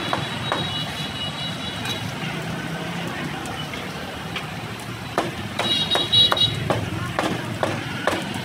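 A heavy cleaver chopping roast pork on a thick wooden chopping block: a run of sharp knocks that come thicker and louder in the second half. Steady street traffic runs underneath.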